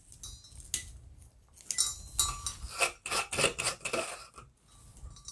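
Clicks and light metallic clinks as multimeter test probes and their leads are handled and touched against a brass lamp socket, mostly in a quick cluster through the middle few seconds.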